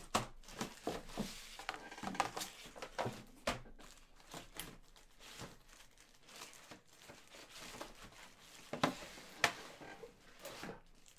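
Scattered light clicks, taps and rustling as hard plastic CGC comic slabs and their packaging are handled and set down, with a few sharper knocks spread throughout.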